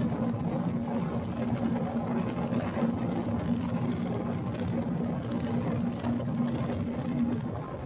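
Honda Tornado 300 motorcycle engine running at a steady speed, with a steady engine note that breaks off near the end.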